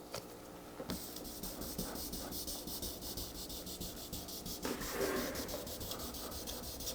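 Hand wet sanding: sandpaper rubbing back and forth over the truck's wet clear coat to level deep scratches before compounding.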